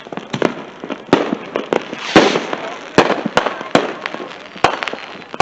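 Fireworks and firecrackers going off: an irregular run of sharp bangs, about nine in five seconds, the loudest about two seconds in.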